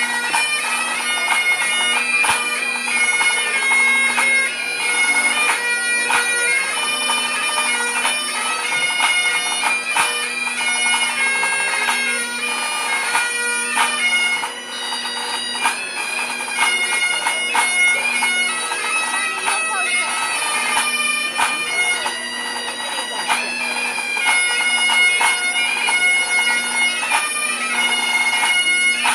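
Great Highland bagpipes played by a small pipe band: the drones hold one steady low tone under a chanter melody that moves from note to note, with a pipe band snare drum keeping time.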